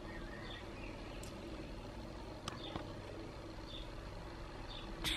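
Quiet steady background hum, with a few faint high chirps and soft ticks scattered through it.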